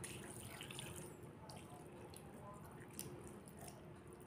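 Vinegar being poured into a wok over raw tilapia and sliced aromatics: a faint trickle and patter of liquid, with a few soft ticks.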